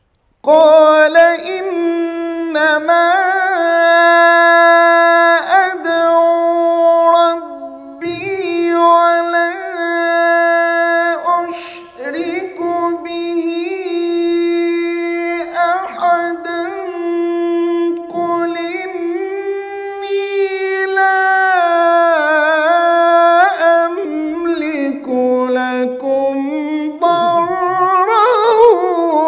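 A man reciting the Quran in melodic tajweed style into a microphone, holding long high notes with ornamented turns between them. The voice comes in about half a second in and breaks briefly for breath a few times.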